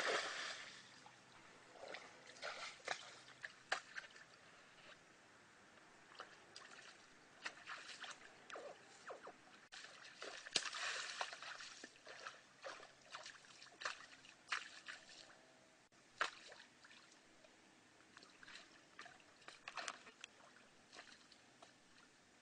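Water splashing and sloshing as a person wades through a shallow stream: a loud splash at the start, then scattered smaller splashes and sloshes, with a longer run of splashing about halfway through.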